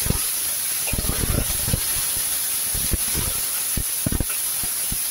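A little water hissing and sizzling as it boils up in a hot wok, steady throughout, with many short low pops scattered through it.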